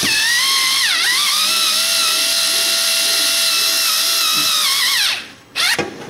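Electric screwdriver's motor whining steadily as it drives an M6 flathead screw through a 3D-printed PLA corner connector into aluminium extrusion; the pitch dips briefly about a second in as the screw bites, then falls as the driver slows and stops about five seconds in, with a short burst again near the end.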